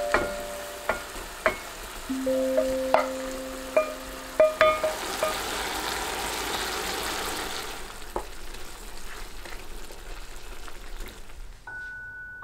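Beef cubes and vegetables sizzling in a frying pan as a sauce is poured in and stirred, with sharp clicks of a utensil against the pan. The sizzle is loudest in the middle and drops away near the end. Soft background music with chiming, bell-like notes plays over it.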